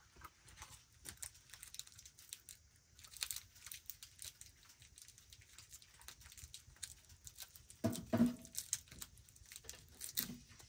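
Faint, irregular crackling and crinkling throughout, with a louder clunk about eight seconds in as an aluminium kettle is set back down on the wood stove.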